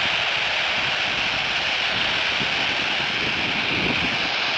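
Steady FM static hissing from a Baofeng BF-F8HP handheld radio's speaker on the ISS downlink frequency, 145.800 MHz, with no voice on the channel: the gap between the astronaut's transmissions, while the next question goes up on a separate uplink.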